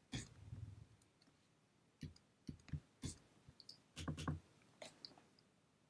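Faint, irregular clicks and taps of a computer mouse, about a dozen scattered over a few seconds.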